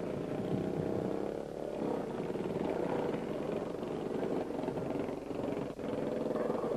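Small motorcycle engine running through the arena, its pitch rising and falling a little as the rider works the throttle.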